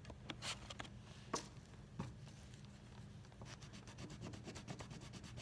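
Colouring on paper: a few separate scratches, then from about three and a half seconds in a quick run of short back-and-forth strokes, several a second, over a faint steady low hum.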